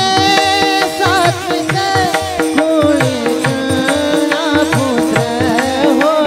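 Warkari bhajan music: a group of men clash small brass hand cymbals (taal) in a fast even rhythm over mridang drumming, a steady held drone and sung lines.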